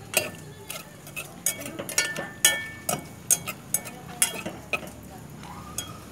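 Diced bacon being stirred in a black pot with a long metal utensil: an irregular run of metal-on-pot scrapes and clinks, to get the bacon pieces crispier.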